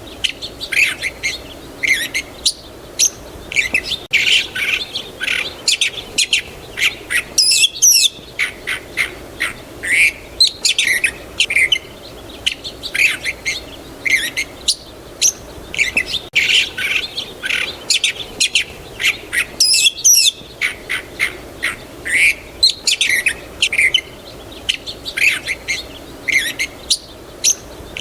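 Small songbirds chirping and tweeting in quick, busy calls, with many short high notes overlapping and only brief pauses.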